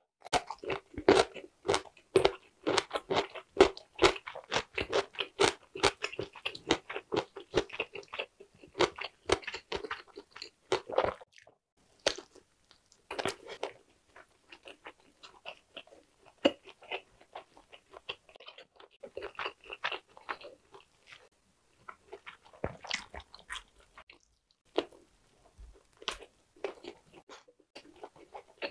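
Close-miked chewing of Korean blood sausage (sundae): rapid, steady chewing for about the first eleven seconds, then slower, sparser chews with short pauses.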